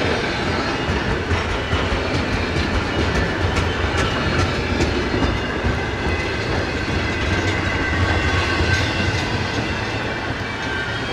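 Double-stack intermodal freight cars rolling past slowly: a steady rumble of steel wheels on rail with scattered clicks as the wheels cross rail joints.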